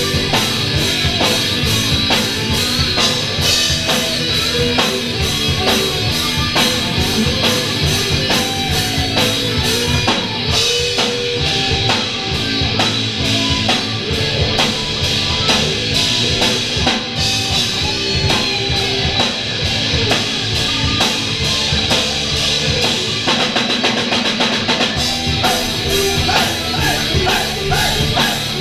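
Live Celtic folk-metal band playing an instrumental passage: a fast-hit drum kit and electric guitars, with no singing.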